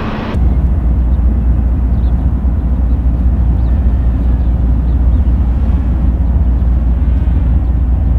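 Wind on the microphone: a steady, loud, low rumble in open country.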